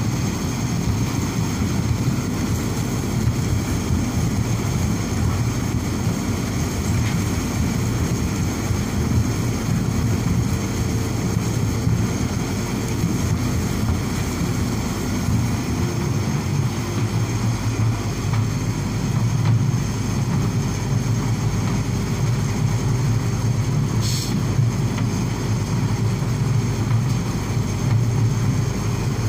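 Vibratory feeder running with briquettes in its steel tray: a steady low hum and drone that holds unchanged throughout.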